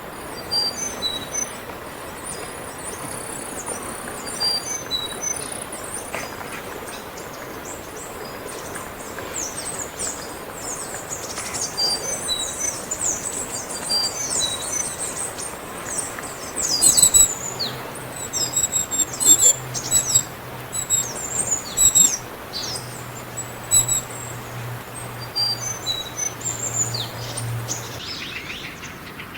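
Small wild birds chirping: many short, high calls and quick falling notes, becoming louder and sharper from about halfway.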